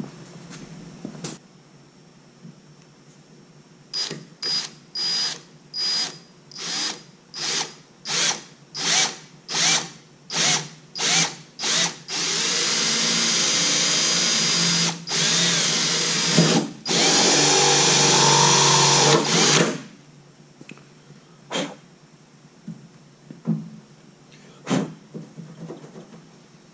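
Electric drill drilling a new mounting hole. It is triggered in about a dozen short bursts, then runs steadily for about eight seconds with two brief stops. A few light knocks follow.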